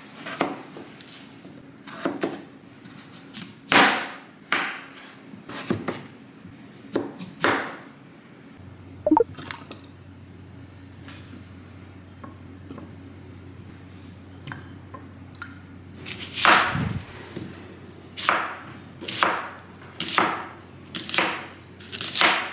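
Kitchen knife cutting through potatoes and onion on a wooden cutting board, a knock each time the blade meets the board, about once a second. The cutting pauses for a quieter stretch in the middle and resumes near the end.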